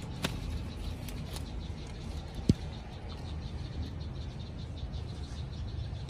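Outdoor ambience under trees: a steady low rumble with a faint, evenly pulsing chirping chorus, a few light clicks in the first second or so, and one sharp knock about two and a half seconds in.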